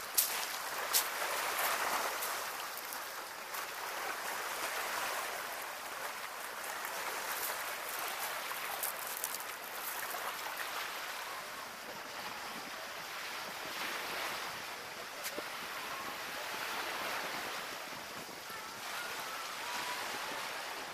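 Small waves washing steadily on the shore, swelling and easing every few seconds, with a couple of sharp clicks in the first second.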